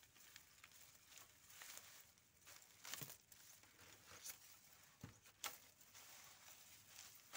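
Faint rustling and crackling of harvested lemongrass stalks and dry, soil-caked roots being handled and pulled apart, with a few sharper snaps about three, four and five seconds in.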